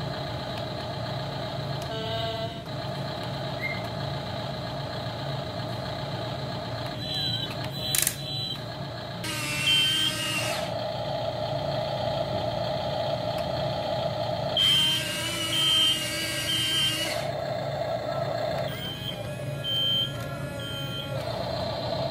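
Toy radio-controlled Volvo EC160E excavator's sound effects: a steady simulated engine hum throughout, broken three times by a burst of hissing with short repeated high beeps, plus one sharp click about eight seconds in.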